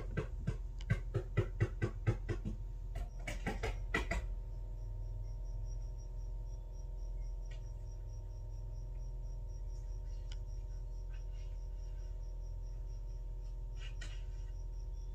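A run of quick, sharp knocks, about three a second, over the first two and a half seconds and a second short run about three to four seconds in, from a worker fastening black building wrap to the house wall. After that there is only a steady hum with a faint high ticking about four times a second.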